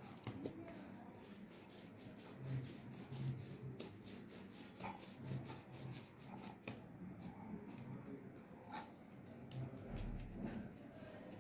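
Hands kneading and pressing a soft ball of naan dough on a rolling board: faint rubbing with a few light knocks.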